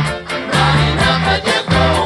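Background music: an upbeat song with steady bass notes, a regular beat and singing.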